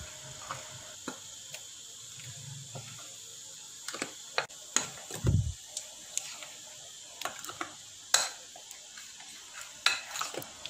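A metal spoon stirring cake batter in a glass mixing bowl, with scattered clinks and taps of the spoon against the glass and a soft low thump about five seconds in.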